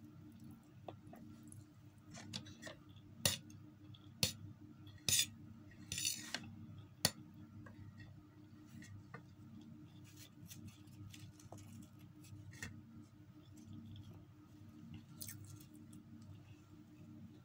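Close-up eating sounds of a person eating instant noodles and flatbread by hand: a run of sharp clicks and clinks with a short rustle a few seconds in, then smaller mouth and finger clicks. A low steady hum runs underneath.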